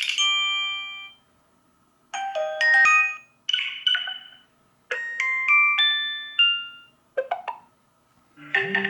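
Vivo Y52 5G smartphone playing its built-in notification tones one after another: about six short melodic chimes of a few clear notes each, with brief silences between them.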